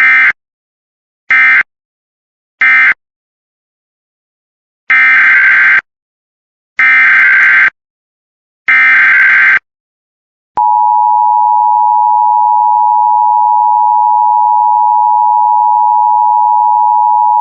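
Emergency Alert System data tones: three short end-of-message bursts of buzzy digital tone, then three longer bursts of the next alert's SAME header. These are followed about ten seconds in by the steady two-tone EAS attention signal (853 and 960 Hz), held for about eight seconds.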